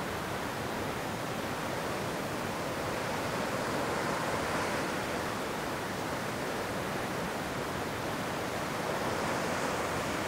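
Ocean surf washing onto the beach: a steady rush of waves that swells a little about four seconds in and again near the end.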